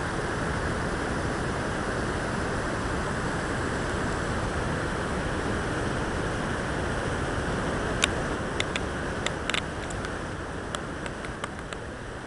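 Muddy river water rushing over rocks in whitewater rapids, a steady dense rushing noise. About two thirds of the way in, a few short sharp clicks sound over it.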